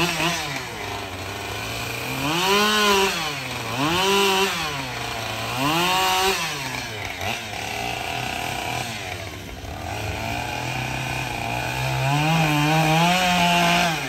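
Gasoline chainsaw cutting into a small upright log, revving up and falling back about four times and running at lower revs in between. The engine stops near the end.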